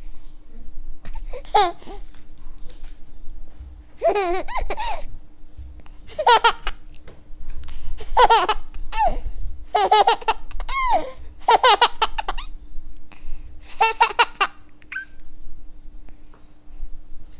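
A baby laughing in repeated high-pitched bouts of giggles, about seven of them, each roughly a second long and spaced about two seconds apart.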